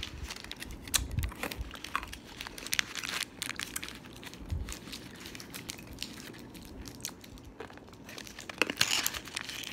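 A crinkly lollipop wrapper being handled and crumpled in the fingers: an irregular run of small crackles and clicks, which grows busier near the end.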